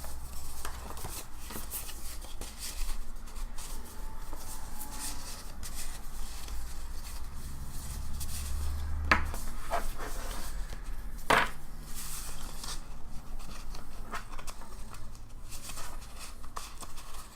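Paper and card being handled: irregular rustling and rubbing, with a few sharp taps or clicks about nine to eleven seconds in.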